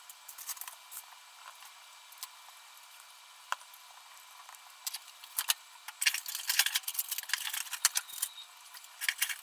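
Wooden spoon scraping and tapping over slices of sandwich bread as mayonnaise and mustard are spread on them, on cooking paper: faint scrapes with scattered crisp clicks that grow denser in the second half.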